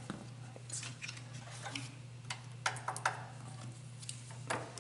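Light metallic clicks and scrapes of a steel feeler gauge working against the valve rocker arms and valve stems of a Briggs & Stratton engine while the valve lash is set, a handful of sharp clicks coming mostly in the second half. A steady low hum lies underneath.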